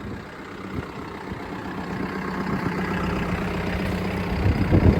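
Cat 420E backhoe loader's diesel engine idling steadily, growing gradually louder.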